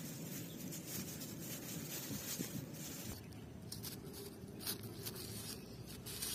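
Faint rustling and crinkling of a black plastic bag as hands dig into it and knead a lump of flour-dough fishing bait, with scattered soft crackles.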